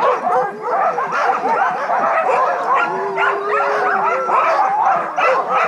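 A team of sled dogs in harness barking and yelping all at once, a dense, continuous clamour of many dogs with one long held call about three seconds in. This is the excited noise sled dogs make while held back just before the start of a run.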